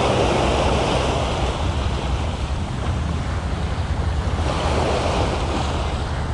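Small waves breaking and washing up over sand and rocks at the water's edge, with wind rumbling on the microphone.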